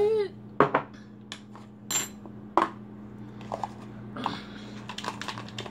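Clinks and knocks of a spoon and dishes being handled on a table: a few separate knocks, then a run of quicker light clicks near the end.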